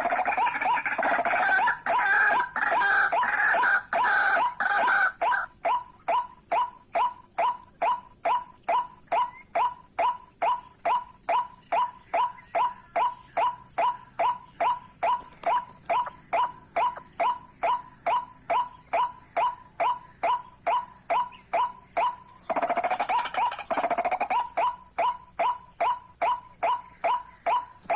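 White-breasted waterhen calls: a monotonous short note repeated evenly about three times a second, with bursts of harsh, croaking chorus calls over the first five seconds and again about 23 seconds in.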